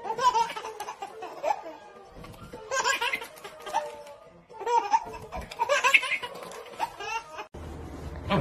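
A small child laughing, in three bouts about two and a half seconds apart.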